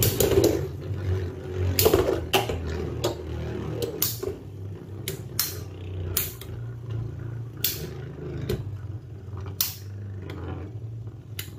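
Two Beyblade spinning tops whirring in a plastic Beyblade stadium, with a steady low hum and sharp clacks at irregular intervals, about a dozen times, as they knock into each other in battle.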